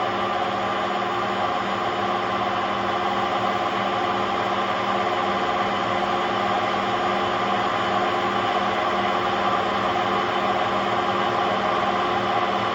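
Hotpoint Aquarius WMA50 washing machine with its drum turning at speed, giving a steady drone with several held tones throughout: the noise of worn drum bearings.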